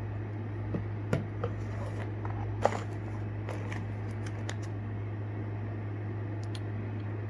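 Scattered light clicks and crinkles from plastic fishing-lure packaging being handled, the sharpest click about two and a half seconds in, over a steady low hum.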